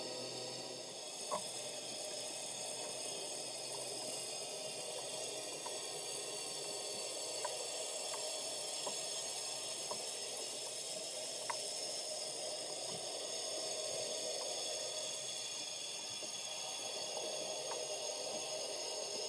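Steady underwater hiss picked up through a camera's underwater housing, with a few faint, sharp clicks scattered through it.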